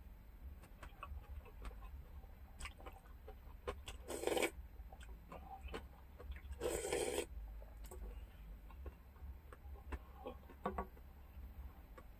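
Faint chewing and small clicks of a wooden spoon against a stainless-steel bowl and pot during a meal, picked up by a low-sensitivity microphone. Two brief louder noises come about four and seven seconds in.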